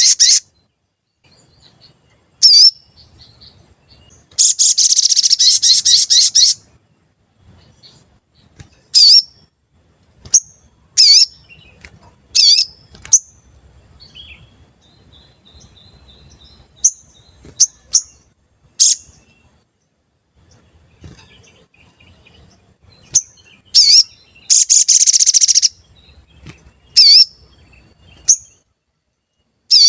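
Sogon songbird calling: loud, sharp single 'cuit' chirps, each dipping and rising quickly in pitch, spaced irregularly, with two rapid trills of about two seconds each, the first near the start and the second near the end. This is a lively sogon's song used as a lure call to set other sogon singing.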